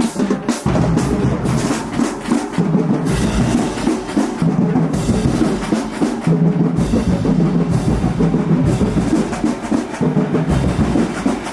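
Marching band playing: sharp drum hits at the start, then held brass chords over steady bass and snare drums.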